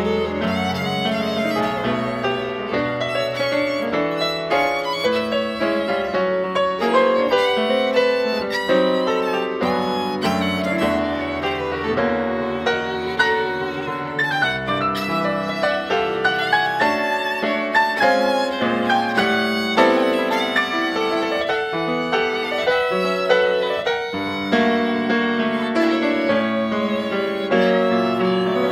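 Solo violin playing a quick, busy melodic line, with piano accompaniment beneath it.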